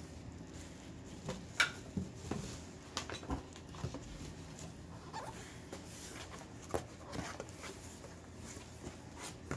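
Rummaging through a box of wrapped items: rustling of packing material with scattered light knocks and clicks as pieces are handled and set down, the sharpest about one and a half seconds in.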